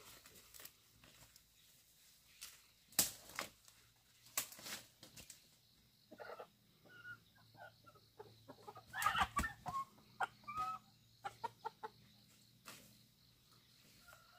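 Chickens clucking and squawking in short calls, with a few sharp clatters, the loudest about nine seconds in.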